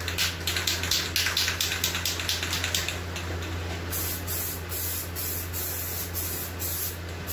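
Aerosol can of Rust-Oleum Peel Coat rubberized coating: a quick run of short, even rattling strokes for about three seconds as the can is shaken, then about a second later the spray nozzle starts hissing in passes with brief gaps as the third coat goes on.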